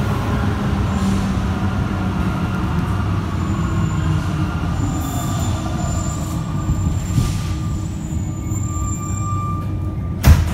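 Interior of a rubber-tyred Alstom NS-93 Santiago metro train running between stations: a steady low rumble with thin high squeal tones that come and go. A single sharp knock sounds near the end.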